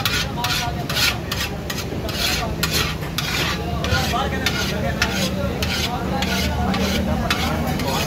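Cooked biryani rice being scraped by hand out of a steel bowl into a large steel cooking pot: repeated rustling scrapes of rice against metal, about two a second, over a steady low hum.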